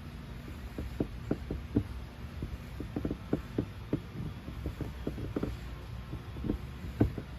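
Paintless dent repair on an Audi e-tron door: light, irregular metallic taps of the tools on the door panel, a few a second, over a low steady hum.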